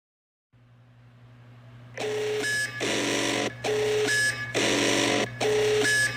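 Emergency Alert System–style alarm: after a low hum fades in, a short beep and a harsh, buzzy data-like burst alternate, the pair repeating about three times from about two seconds in.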